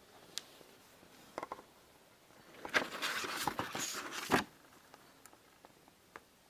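Old photographs and papers being handled at a wooden chest of drawers: a few light clicks, then about two seconds of rustling and scraping that stops suddenly.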